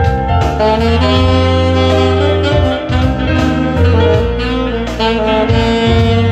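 Alto saxophone playing a melody over a recorded backing track, with bass notes underneath and light drums keeping the beat.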